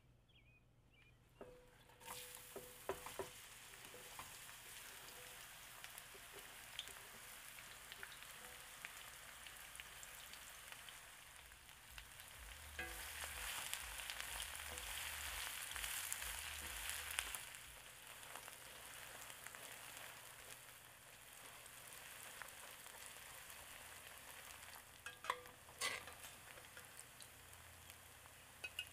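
Sliced onions frying in hot vegetable oil in a stainless steel wok: a steady sizzle that starts about two seconds in with a few clicks as the onions go in, and grows louder for a few seconds in the middle. Near the end a metal spatula knocks and scrapes against the pan as the browning onions are stirred.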